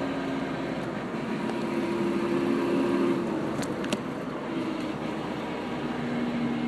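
1992 Toyota pickup grinding while in gear with the throttle closed, over steady drivetrain and road noise; the owner thinks the grind comes from the transmission. Two faint clicks come about three and a half seconds in.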